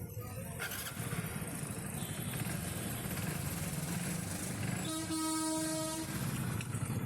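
An engine running with a steady rumble, and a horn sounding once for about a second near the middle.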